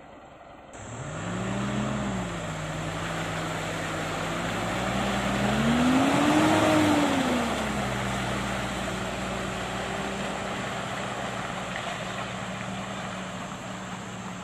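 Mitsubishi Strada Triton pickup's engine pulling through deep mud, with tyres churning mud under the engine note. The engine picks up about a second in, revs higher to its loudest around the middle, then drops back and holds steady under load.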